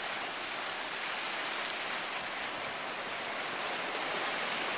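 Ocean surf washing over and breaking against shoreline rocks: a steady rushing hiss of water.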